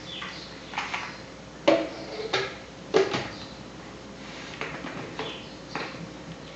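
Blender lid and jar being fitted and pressed into place: a series of short knocks and clicks, the loudest near two and three seconds in.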